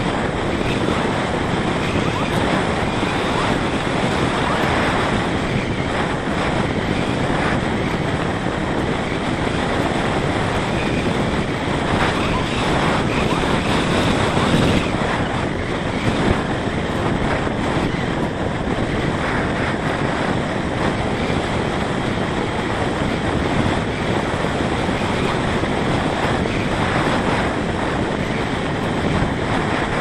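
Steady rush of wind over the microphone of a camera mounted on a Parrot Disco fixed-wing drone gliding with its motor off.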